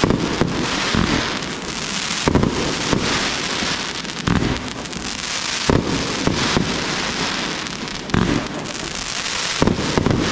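Aerial fireworks display: a continuous dense crackle of bursting stars, cut by sharp bangs of shells bursting every one to two seconds.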